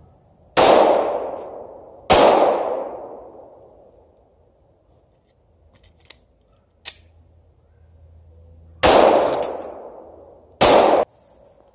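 Glock 19 9mm pistol firing four shots in two pairs: two shots about a second and a half apart, a pause of several seconds, then two more. Each shot rings out with a long echo, except the last, which cuts off short.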